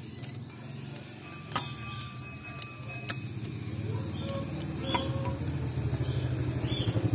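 An engine runs with a low, even pulsing that grows louder toward the end, while a few sharp light metallic clicks sound from the cam chain and sprocket being handled.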